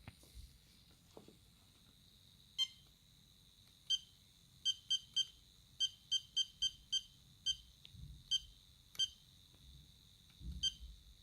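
iCharger X6 hobby battery charger giving about fourteen short, high electronic beeps at an uneven pace, some in quick runs, over a faint steady high whine from its cooling fan.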